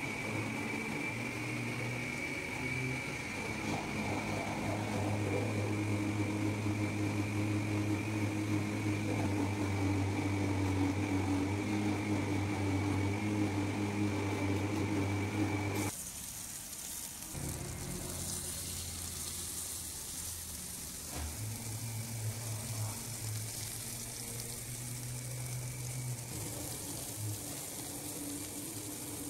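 A steady mechanical hum with a high whine, then, from about halfway, a whole masala-coated fish frying in oil on a tawa: a steady hiss of sizzling.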